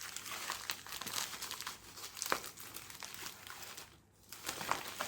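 Packaging being crinkled and torn open by hand as a small postal packet is unwrapped: a run of crackling rustles with a short pause about four seconds in.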